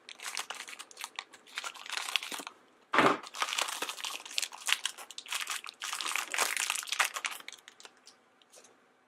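A small plastic blind-bag packet being crinkled and torn open by hand, in crackly bursts. There is one sharp, loud rip about three seconds in.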